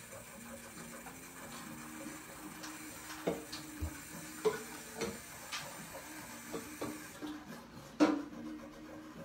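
Fingertips rubbing damp transfer paper off a wooden photo-transfer board: soft rubbing with scattered light taps and scuffs, and one louder knock about eight seconds in.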